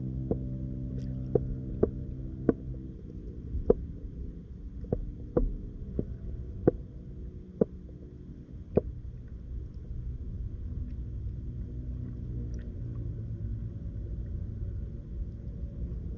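Low underwater rumble heard through a submerged camera. A steady low hum fades out over the first few seconds, and sharp clicks come about once a second until about nine seconds in.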